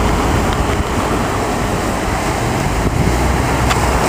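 Surf washing on a beach, mixed with wind buffeting the microphone: a steady rushing noise with a rumbling low end.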